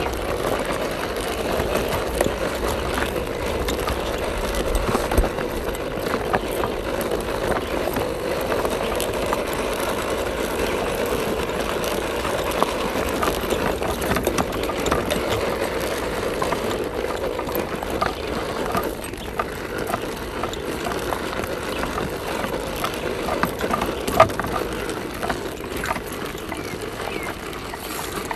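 Electric RC scale crawler truck driving slowly over dry, cracked mud: steady whirring of its motor and gearbox, with scattered clicks as the tyres go over the clods and one sharp click near the end.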